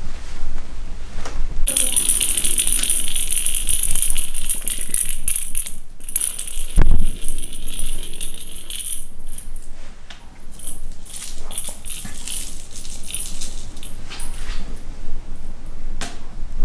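A small jingling cat-toy ball rattling as it rolls and is batted across a wooden floor by a Maine Coon kitten, a dense steady jingle for several seconds that then breaks into scattered rattles. A single heavy thump about seven seconds in.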